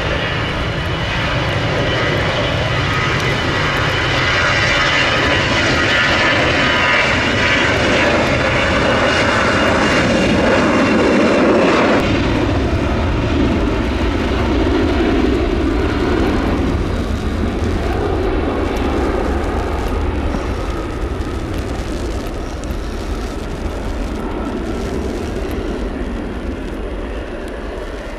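Jet airliner engines, a loud steady rush with a whine, building to a peak about twelve seconds in, where the sound changes suddenly and turns deeper, then slowly fading as the aircraft moves off along the wet runway.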